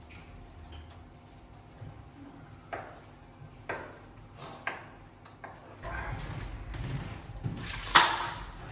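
A small aluminium poster frame being fitted to a wall by hand with a screwdriver: a few sharp clicks and taps. A low rumble starts in the last few seconds, and a louder click comes near the end as the frame's edge is pressed in.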